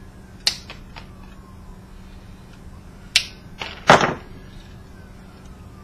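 Sharp clicks and snaps from a projector lamp assembly being pried and pulled apart by hand: a few small clicks about half a second in, then a crack about three seconds in and a louder, longer snap with a rattle just after.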